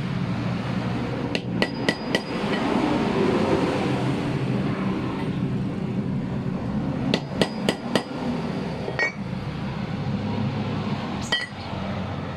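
Hammer strikes on the metal of an AC compressor pulley bearing, each with a brief metallic ring. There are two runs of four quick taps, then two single taps near the end.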